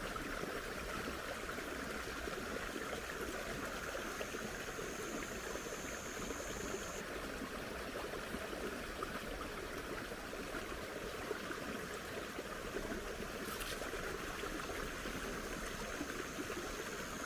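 Steady trickle of shallow water running through a rice-paddy ditch. A thin, high, steady tone comes in twice over it, and there is one brief click near the end.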